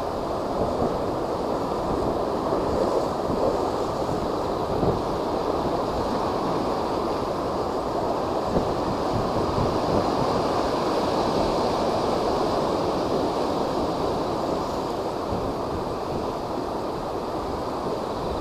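Heavy surf from typhoon-driven high waves: a steady rush of breaking water, with wind buffeting the microphone.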